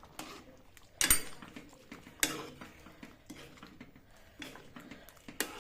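Spoon stirring matar paneer curry in a pan, clinking against the pan a handful of times, roughly once a second.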